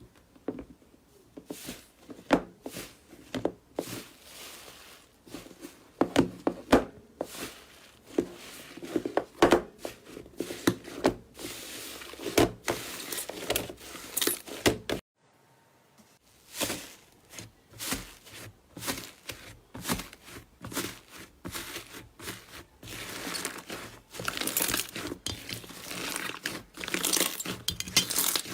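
Slime being squeezed and poked by hand: a run of sharp wet pops, clicks and crackles. They break off for about a second halfway through and then come back as denser crackling.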